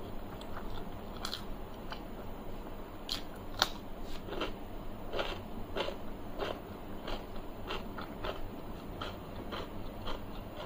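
Close-miked chewing of a mouthful of rice and curry, with sharp wet smacking clicks, about two a second for most of the stretch.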